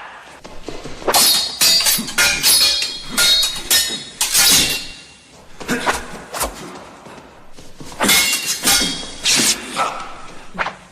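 Swords clashing in combat: repeated sharp metal-on-metal blade strikes in quick groups of two or three, about once a second, each leaving a bright ringing tone.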